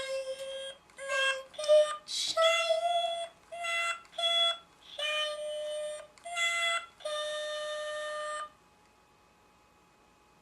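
Fisher-Price Singamajigs toy singing in a thin electronic voice with hard-to-make-out words: a string of short sung notes ending on a long held note about eight and a half seconds in, then it stops.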